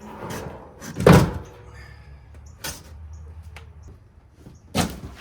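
Thumps and scraping from handling and pulling open a large cardboard shipping box holding truck bed side panels, with one heavy thump about a second in and two lighter knocks later.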